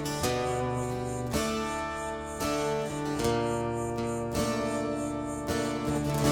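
Music track led by strummed acoustic guitar, a new chord struck about once a second.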